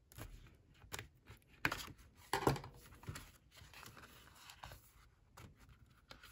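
Scissors snipping through the clear plastic wrap of a paper pad, several sharp cuts in the first three seconds, the loudest about two and a half seconds in. Softer crinkling of the cellophane follows as the pad is worked out of the wrapper.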